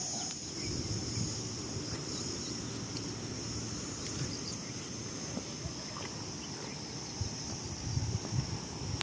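Insects keep up a steady, high-pitched drone, with a low rumble of wind or handling noise underneath.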